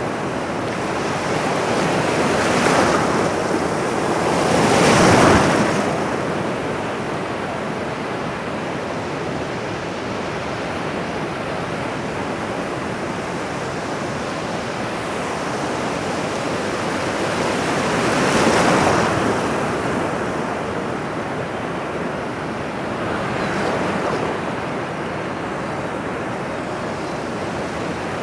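Ocean surf: a continuous wash of waves, with four swells as waves break, the loudest about five seconds in.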